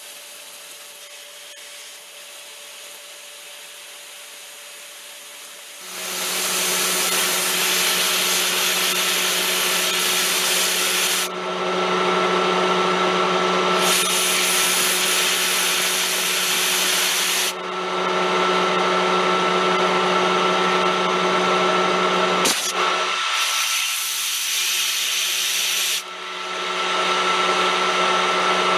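Metal lathe running quietly, then turning a steel bar under load from about six seconds in, with a steady machine hum. Over it, a compressed-air blast hisses in four sharp-edged bursts, cooling the hot work so the chips break instead of coming off stringy. One sharp click sounds a few seconds from the end.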